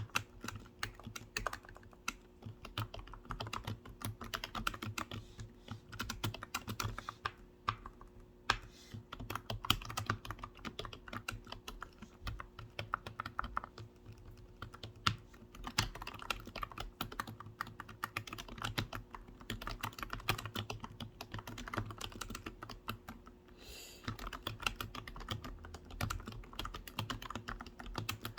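Steady typing on a computer keyboard: rapid, uneven key clicks with a couple of brief lulls.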